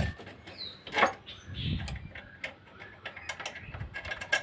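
Scattered light clicks and clinks of hand tools and small metal parts being handled during engine teardown, with one louder knock about a second in and a run of quicker clicks near the end.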